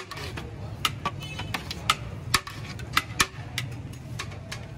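Metal ladles clinking and scraping against large metal biryani pots as rice is scooped out, about a dozen sharp irregular clinks over a steady low background hum.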